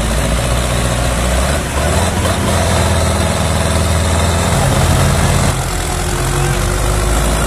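Diesel farm tractor engine running hard under the load of a heavily loaded sugarcane trolley, its note shifting about two seconds in and again about five and a half seconds in.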